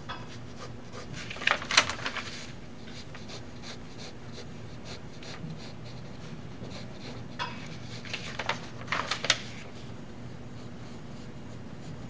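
Pencil sketching on paper: two spells of quick scratching strokes, about a second and a half in and again around seven to nine seconds in, over a steady low hum.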